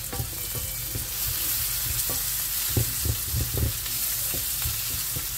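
Sliced onions and bell peppers sizzling in oil in a Tefal non-stick frying pan, with a wooden spatula scraping and knocking against the pan as they are stirred. The spatula strokes come thickest about three seconds in, over a steady sizzle.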